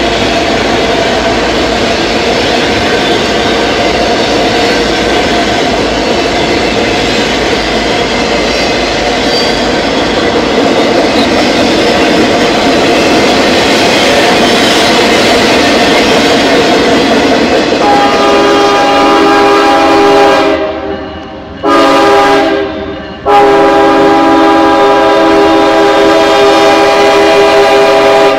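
Freight train's autorack cars rolling past on the rails, a steady rumble with a faint ringing squeal. About two-thirds of the way through, a CSX locomotive's air horn sounds a chord in three blasts: a long one, a short one, then a long held blast, sounding for a grade crossing.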